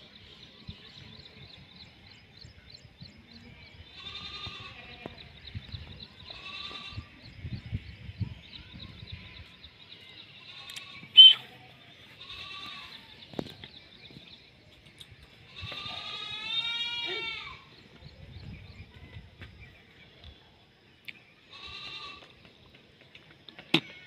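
Indian ringneck parakeet calling in short separate pitched calls, with one loud sharp squawk about eleven seconds in and a longer call of wavering pitch a few seconds later.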